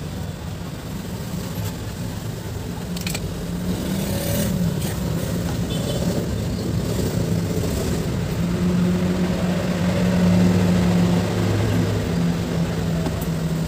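A road vehicle's engine running close by, a low hum that shifts in pitch and grows louder about ten seconds in. A few brief scratchy handling sounds come about three to five seconds in.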